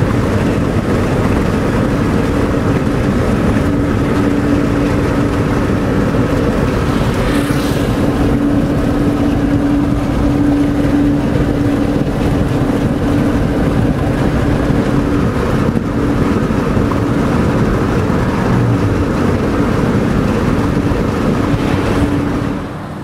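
Steady road and wind noise of a car driving at speed, with a constant droning hum. The noise drops sharply just before the end.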